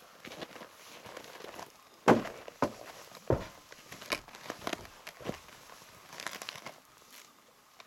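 A heavy nylon duffel bag set down onto a plastic sled with a sharp thump about two seconds in, then crinkling fabric and several lighter knocks as the bag is pressed into place and strapped down.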